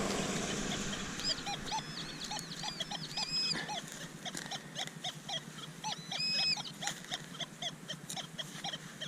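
A dog barking over and over, about two barks a second, with some higher-pitched calls in between.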